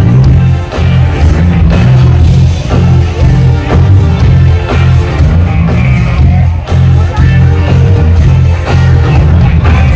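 Live band playing rock music over an outdoor stage's PA system, with a heavy bass pulsing in a steady rhythm.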